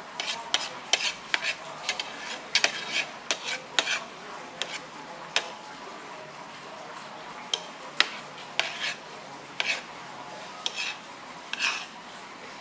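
Metal utensils clinking and scraping against dishes in irregular sharp clicks, thick for the first few seconds, sparser in the middle, then thicker again near the end.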